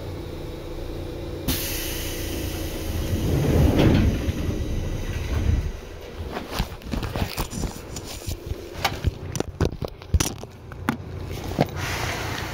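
Inside a Seibu 2000 series train car at a station stop: a low steady hum, then a sudden hiss about a second and a half in as the doors open, a rumble, and then scattered clicks and knocks.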